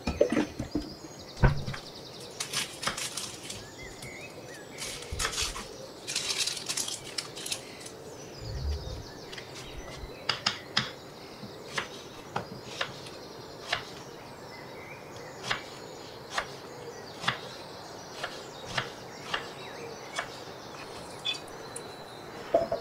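Water poured and splashing at a stainless steel kitchen sink for the first several seconds. Then a kitchen knife chops an onion on a wooden cutting board, with sharp knocks about once a second.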